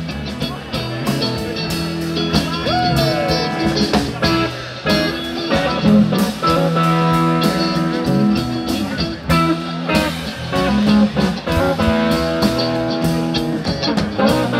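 Live rock band playing an instrumental passage between sung lines: electric guitars over electric bass and a drum kit, with a few bent guitar notes early on.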